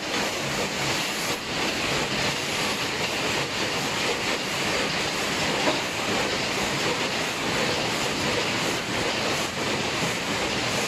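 Several paper cup and bowl forming machines running together: a dense, steady mechanical clatter of rapid clicks and knocks.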